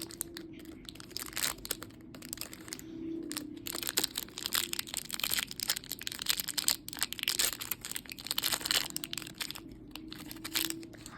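Plastic toy packaging crinkling and crackling as it is handled and torn open, in dense irregular crackles throughout.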